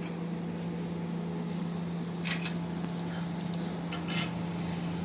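Metal kitchen utensils clinking and scraping against a pot a few times, the loudest clink near the end, over a steady low hum.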